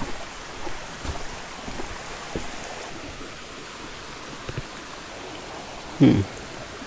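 Shallow rocky mountain stream running, a steady rush of water over stones, with a few light knocks and a short voice sound near the end.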